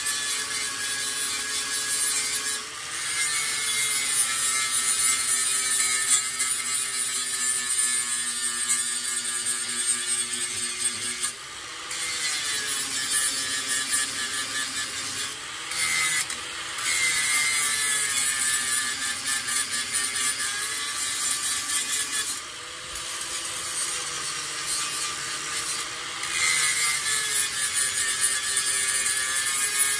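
Handheld angle grinder grinding a curved steel band, the motor's whine wavering up and down in pitch as the load on the disc changes, with several short dips in loudness.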